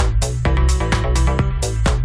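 Background electronic music with a steady beat, about four beats a second over a sustained bass line.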